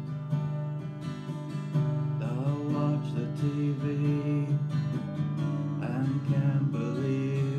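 Acoustic guitar strummed in chords, with a man's voice singing over it from about two seconds in.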